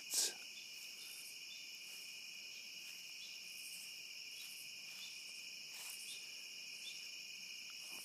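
Loud, steady chorus of night insects such as crickets, trilling continuously at a high pitch. A brief swish of noise comes just at the start.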